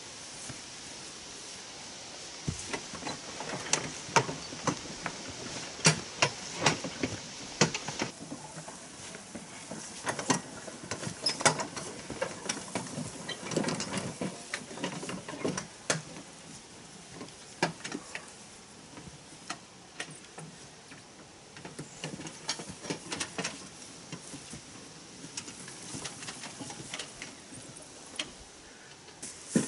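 Irregular clatter and knocks of a two-wheeled hand cart loaded with concrete slabs being wheeled over grass, the slabs bumping and shifting on the cart.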